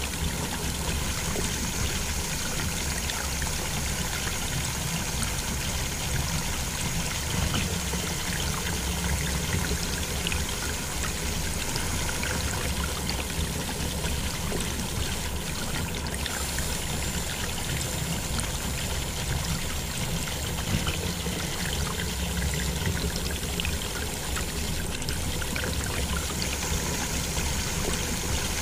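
A thin stream of water pouring steadily from a toy water pump's small metal outlet pipe into a shallow pool of muddy water.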